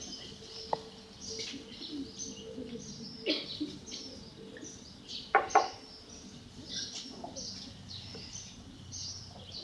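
Small birds chirping and twittering on and off, faint and scattered, with two short, louder calls about five and a half seconds in.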